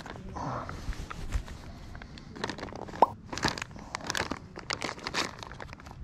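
Clear plastic zip bags of small parts crinkling and rustling in the hands, in a run of short rustles, with one sharp click about halfway through.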